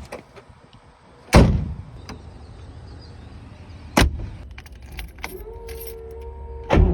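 Mercedes-Benz 300 SL Gullwing: two loud, sharp door thuds about two and a half seconds apart. Then a steady whine runs for about a second and a half and ends in another thud just before the engine starts.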